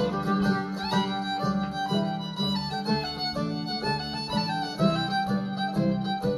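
Background music led by a fiddle, with a steady pulsing beat underneath.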